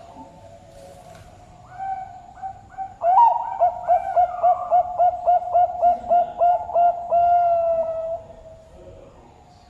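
Zebra dove (perkutut, Bangkok type) singing its cooing song. A few soft coos lead into a loud opening note, then a quick even string of about a dozen short coos, ending in one long drawn-out note.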